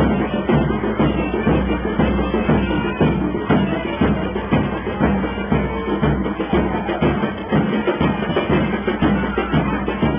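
Lively music with a steady drum beat and wind instruments playing over it.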